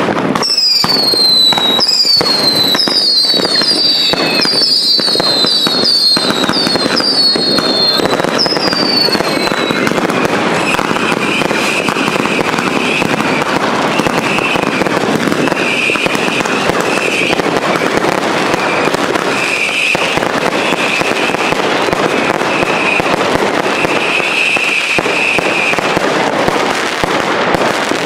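Ground fireworks going off: a fountain sprays sparks with a steady rushing hiss. Over roughly the first ten seconds a rapid run of falling whistles and sharp pops sounds above it. After that a wavering high whistle comes and goes.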